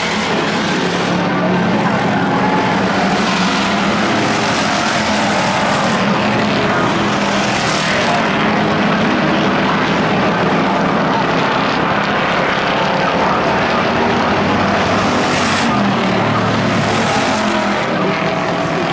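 A pack of Pure Stock race cars' engines running hard as the field laps the oval, a loud, steady mix of several engines at once.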